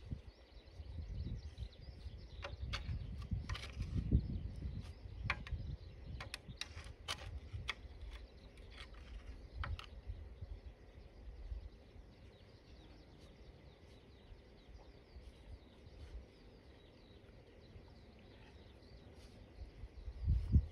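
A thin metal tool scraping and picking at packed dirt in a hole in a mini excavator's steel track frame: a quick run of sharp clicks and scrapes for the first ten seconds or so, then quieter with only occasional faint ticks, and one louder knock near the end.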